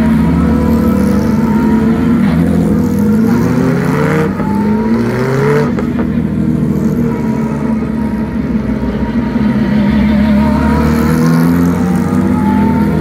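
Porsche 911 GT3 Cup race cars driving slowly past one after another, their flat-six engines running at low revs, with short rising blips of throttle about four to six seconds in and again near the end.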